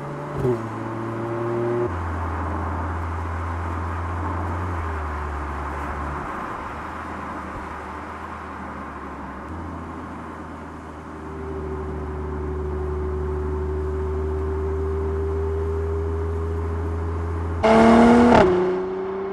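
Mercedes-AMG GLC 43's 3.0-litre twin-turbo V6 running under way at steady revs, with road and wind noise. Its note steps down in pitch a few times in the first seconds, and a short loud burst of engine noise comes near the end.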